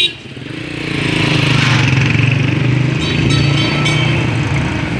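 A motor vehicle's engine idling close by, a steady low hum that builds over the first second and then holds.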